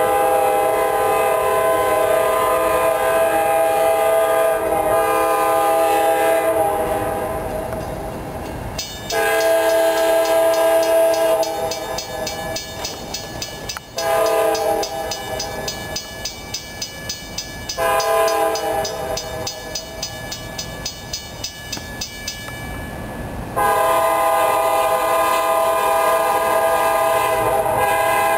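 An approaching CSX diesel locomotive sounding its air horn in several long blasts, several notes together, the warning signal for a grade crossing. In the middle, between the blasts, the crossing bell rings with a quick, even ding.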